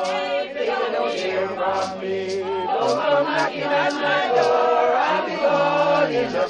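A group of people singing a hymn together, unaccompanied.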